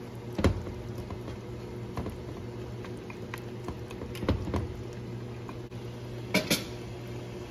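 Wooden spoon stirring beef curry in a metal cooking pot, knocking against the pot a handful of times, the loudest two close together near the end. Under it, faint simmering and a steady low hum.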